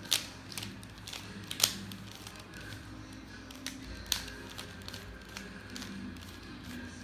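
Mirror cube being turned by hand: sharp plastic clicks and clacks as its layers snap round, three louder ones spread over several seconds among fainter turning sounds, over faint background music.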